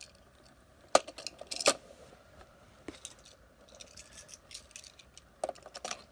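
Die-cast toy cars being set down on a hard display base and clicking against it: a few sharp clicks, two close together about one to two seconds in, a smaller one near three seconds, and a short run of light clicks near the end.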